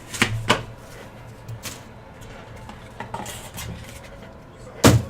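Hands opening and handling a trading-card hobby box and its packaging: a few separate sharp clicks and knocks, the loudest just before the end.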